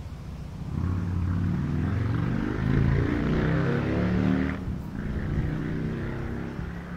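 A motor vehicle's engine revving up, its pitch shifting, with a short dip about four and a half seconds in.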